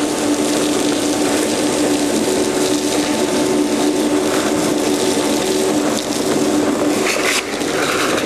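Ruwac FRV1400 explosion-proof industrial vacuum, driven by a 5 hp explosion-proof motor, running steadily while its hose nozzle sucks up sand and fine dust: a steady rush of air with a hum. Brief louder hissing comes near the end.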